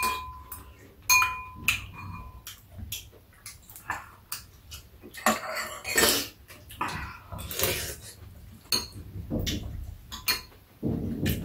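Metal spoons clinking and scraping against bowls, a couple of the clinks ringing briefly near the start, with slurping and chewing of soup between them.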